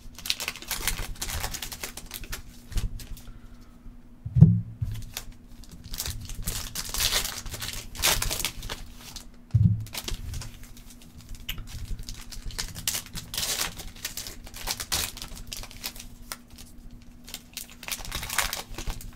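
Foil wrappers of Panini Contenders basketball card packs being torn open and crinkled by hand, in irregular crackling spurts. Two dull thumps come about four and nine and a half seconds in.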